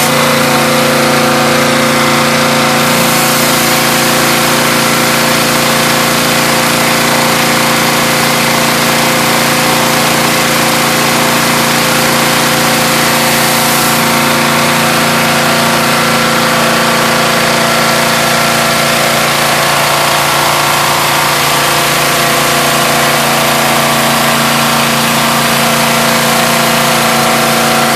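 Pressure washer engine running steadily, with the hiss of high-pressure water jets from a rotary surface cleaner on concrete.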